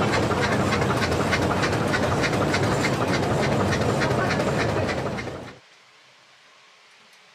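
Train running, a loud steady rumble with rapid, evenly spaced clickety-clack from the wheels. It cuts off suddenly about five and a half seconds in, leaving a faint hiss.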